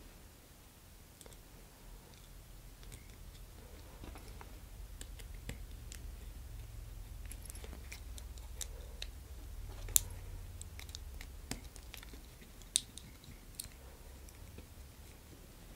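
Faint scattered clicks and taps of a small electrical switch, its wires and screws being handled on a cutting mat, with a sharper click about ten seconds in and another near thirteen seconds, over a faint low rumble.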